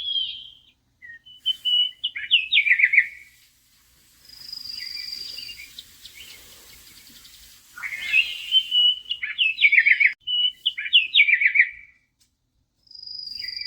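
Birdsong: phrases of quick chirps and trills, with a long high whistled note twice.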